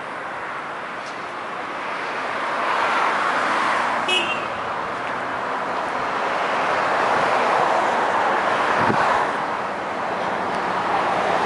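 Road traffic passing, a steady rush of tyre and engine noise that swells twice as vehicles go by, with a brief high chirp about four seconds in.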